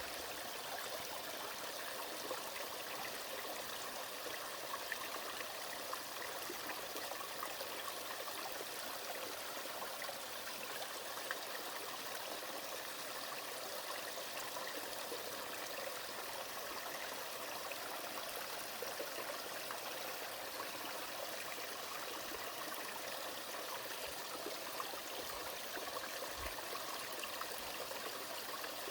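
Small three-tiered waterfall on a mountain stream carrying thaw meltwater, the water splashing and rushing in a steady, unbroken wash.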